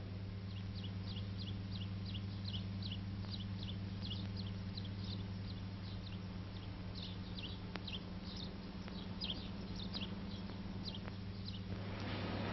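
A small bird chirping over and over, short high downward chirps at about two or three a second, over a steady low electrical hum.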